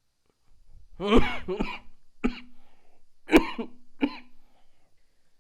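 A man coughing in a fit of several short, sharp coughs starting about a second in; he is ill and out of condition.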